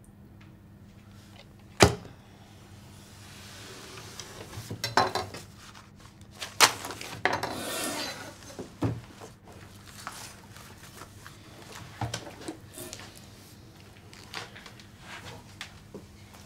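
Handling sounds in a quiet room: a sharp knock about two seconds in, then rustling of papers and clothing and a longer scrape with knocks as a person gets up from a table.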